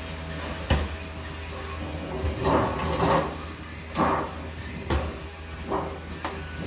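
Galvanized sheet-metal duct pieces being handled on a wooden bench: a sharp clank under a second in, then scraping and several knocks as a sheet is lifted and moved, over a steady low hum.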